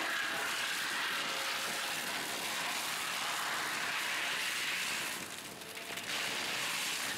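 Excavator-mounted forestry mulcher head grinding through brush and small trees, a steady shredding noise with the machine running under load. It drops off briefly about five seconds in, then picks up again.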